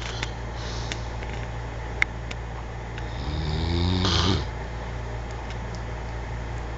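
A sleeper snoring: one snore lasting about a second, a little past the middle, over a steady low hum.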